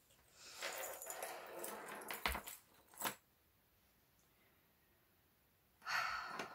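Handling of a handmade junk journal: paper and fabric rustling for a couple of seconds, with two sharp clicks about two and three seconds in, then a pause and another short rustle near the end.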